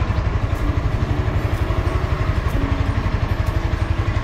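Honda CBR300R's single-cylinder engine idling with a steady, rapid, even pulse. It runs a little loud, on a crankshaft that has failed.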